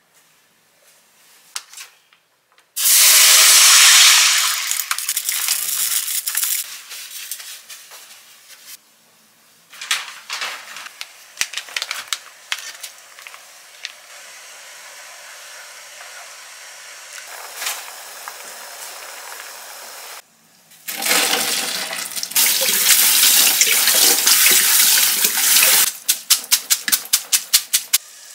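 Kitchen water running or pouring in two loud spells with a steady quieter hiss between them, then a quick run of ticks, about three a second, near the end.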